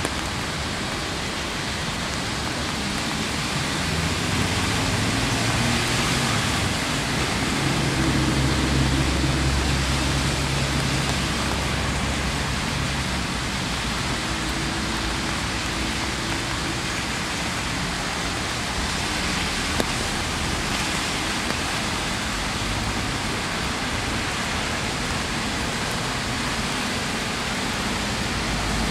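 Steady rain falling, an even hiss throughout. A vehicle engine hums low in the background from about four seconds in, fading out past the middle.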